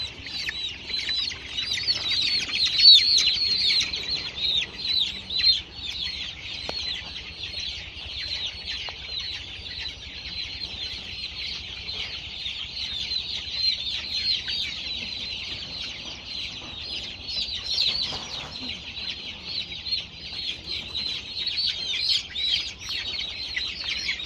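A flock of broiler and layer chickens in a poultry house calling together: a dense, continuous chorus of many short, high-pitched calls.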